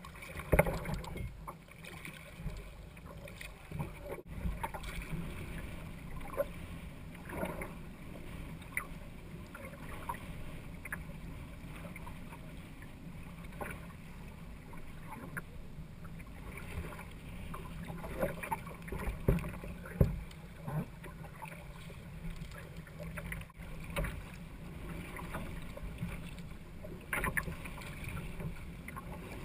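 Choppy water slapping and splashing against a kayak's hull, with irregular sharper splashes through a steady low rumble of wind on the microphone.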